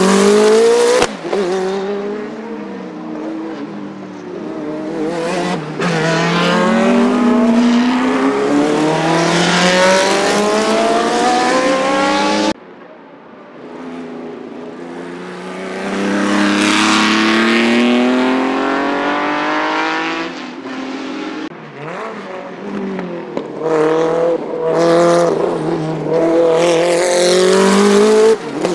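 Group C sports-prototype race cars passing at racing speed, their engines climbing in pitch through the gears with a brief break at each upshift. The sound cuts off abruptly about twelve seconds in and picks up again with another car accelerating, and the loudest pass comes near the end.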